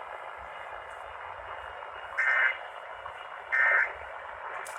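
Emergency Alert System end-of-message data bursts: short, shrill digital chirps about a second and a half apart, two of them here, marking the end of the test. Under them is a steady hiss of radio reception.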